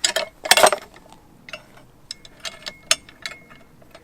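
Metal parts of a LogOx forestry tool clicking and clanking as the Timberjack attachment is fitted onto the handle: a loud clatter about half a second in, then scattered sharp clicks.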